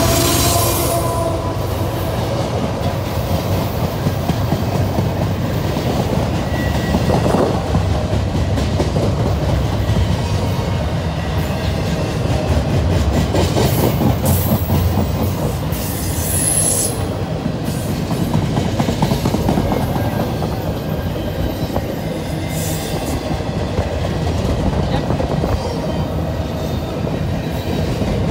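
Double-stack intermodal freight train's container well cars rolling past close by: a steady loud rumble with wheels clattering over the rail joints. The trailing diesel locomotive's engine hum fades out in the first second, and a brief high wheel squeal comes about sixteen seconds in.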